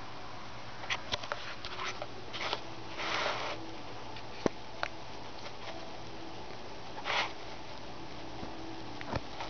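Two short sniffs close to the microphone, a longer one about three seconds in and a shorter one about seven seconds in, with a few light clicks and taps around them.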